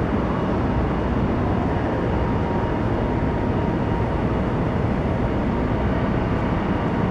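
Steady rushing noise with a low hum from an EU07 electric locomotive standing at the platform with its train.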